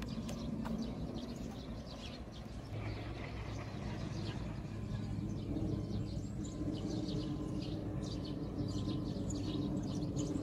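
Small birds chirping over outdoor ambience, joined about three seconds in by a steady low engine hum.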